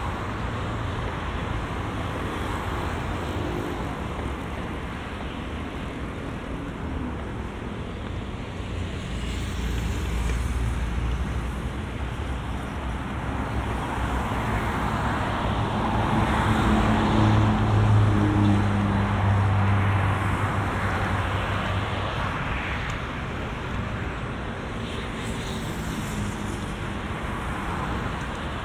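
Road traffic on the avenue beside the path: steady noise of cars passing. Just past halfway, one vehicle's low engine hum swells and then fades.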